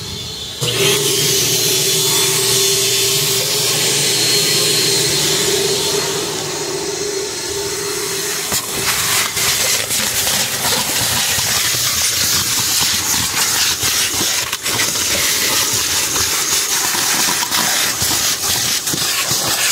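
Car wash vacuum station's motor switching on about a second in and running with a steady hum and rushing air through the hose. From about eight seconds in, the suction nozzle works over a car's floor and floor mat, with crackles and clicks.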